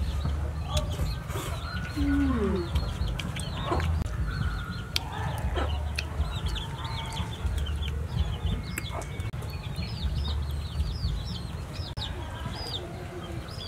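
Chickens clucking in the yard, with many short high falling peeps throughout and a few lower falling calls, over a low steady rumble.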